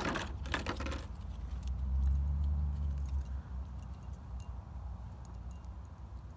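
Clear plastic blister packaging crinkling and clicking in the hands for about a second, then a low rumble that swells and fades, with a few faint scattered clicks.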